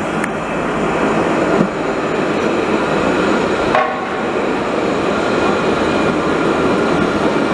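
Alstom Citadis light-rail trams passing close by on street track: a steady rumble and hiss of wheels running on rail, with two short knocks, one about a second and a half in and one nearly four seconds in.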